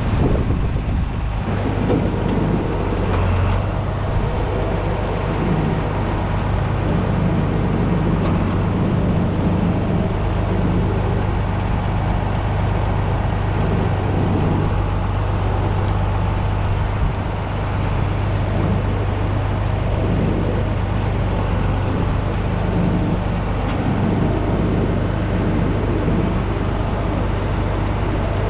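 Farm machinery running steadily: a constant low engine-like hum under a loud, even rushing noise.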